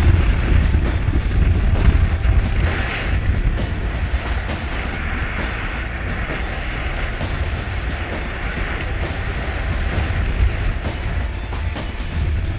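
Wind buffeting the microphone in a deep, steady rumble, over a continuous rush of water from a Weta trimaran sailing under way.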